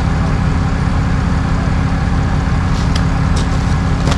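Heavy truck engine idling with a steady low drone. A few short sharp clicks come near the end.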